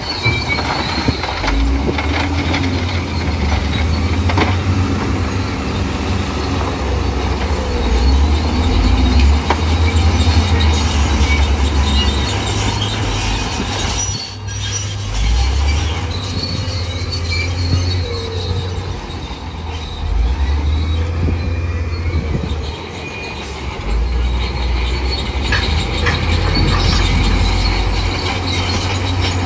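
Bulldozer's diesel engine working under load that rises and falls, with squealing and clanking from its steel tracks.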